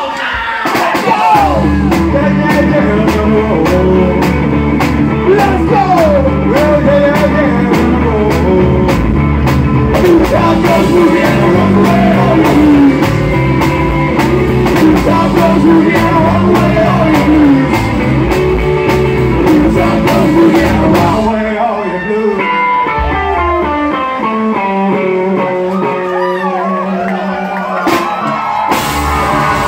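Live rock and roll band playing: a singer over guitar, bass and drums with a steady beat. About two-thirds of the way through, the drums stop and the guitar and bass carry on alone, and the drums come back in near the end.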